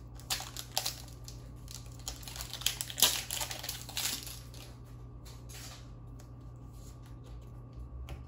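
A trading-card booster pack's foil wrapper being torn open and crinkled, with crackling and clicks for the first four seconds or so, loudest about three seconds in. After that there is only light rustling as the cards are handled.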